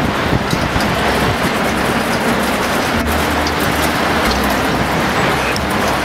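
Train running: a steady rushing noise with a low rumble underneath.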